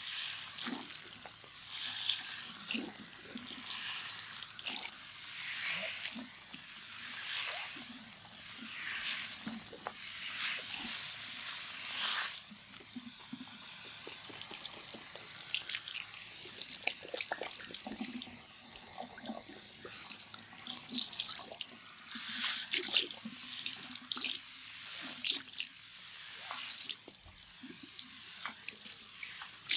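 Hands rubbing foam lather over skin in a massage: wet rubbing with fine crackling, coming in uneven strokes every second or two.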